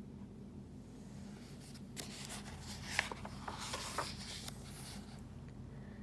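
Paper rustling with a few light ticks, from about two seconds in to about five: the pages of a picture book being handled and turned.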